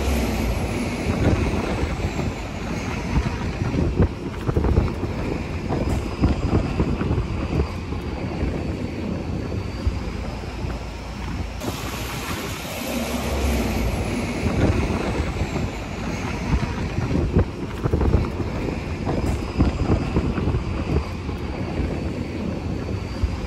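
Wind buffeting the microphone on the open top deck of a moving double-decker bus, over a steady low rumble of the bus and street traffic. A faint high whine slides down in pitch and levels off, twice.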